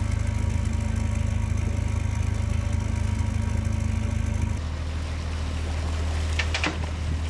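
A fishing cutter's engine running steadily with a fast low throb. About four and a half seconds in, a cut brings a smoother engine drone, and near the end there are two or three short, sharp knocks or splashes.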